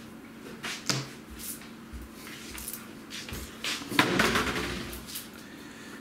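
Objects handled at a kitchen worktop: scattered clicks and knocks, a sharp knock about a second in, and a louder clatter for about a second from around four seconds in.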